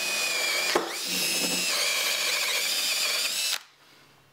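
Makita cordless drill spinning a Forstner bit, boring a pipe hole through a pine vise jaw: a steady motor whine that wavers and dips in pitch as the bit cuts, with a short click about a second in. The drill stops suddenly near the end.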